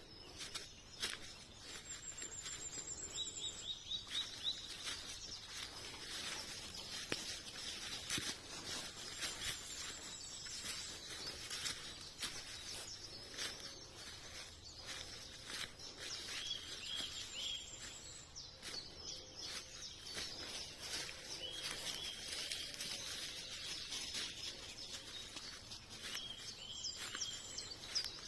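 Countryside ambience with birds singing: short high trills that repeat every several seconds, over a steady hiss and scattered faint crackles.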